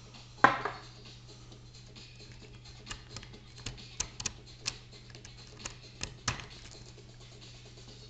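Lock pick and tension wrench working the pin tumblers of a Mauer MLS euro cylinder: scattered light metallic clicks and ticks, with two louder ringing clicks, about half a second in and again about six seconds in.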